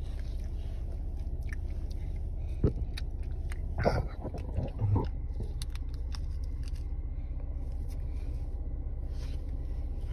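Steady low hum of a car heard from inside the cabin, with small clicks and smacking mouth sounds from a toddler eating powdered Fun Dip candy, and a brief murmur from the child about four seconds in.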